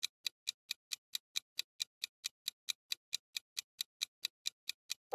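Quiz countdown-timer sound effect: a steady clock-like ticking, about four to five ticks a second.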